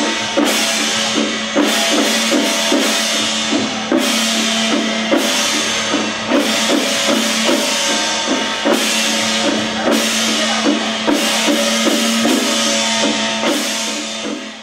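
Chinese temple procession percussion: drums beaten in a steady rhythm, with loud cymbal crashes about every second and a held tone underneath.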